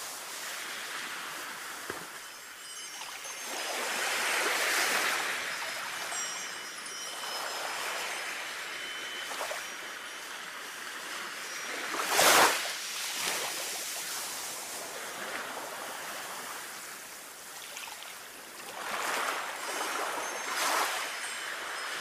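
Sea waves washing in and out in slow swells, the loudest and sharpest about twelve seconds in. A wind chime tinkles lightly with scattered high notes over the surf.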